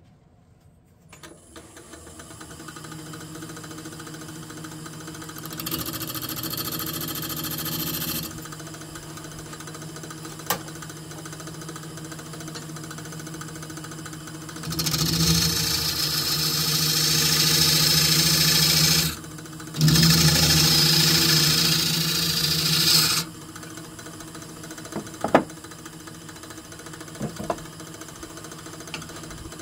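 Wood lathe starting up about a second in and running with a steady hum while a turning tool cuts into a spinning cherry burl blank. There is a short cut about six seconds in, then longer loud cutting from about 15 to 23 seconds with a brief pause in the middle. A few light clicks follow near the end.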